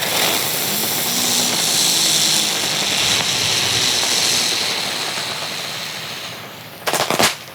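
Small consumer firework spewing sparks with a steady hissing rush that slowly fades, then a quick string of sharp pops and cracks near the end.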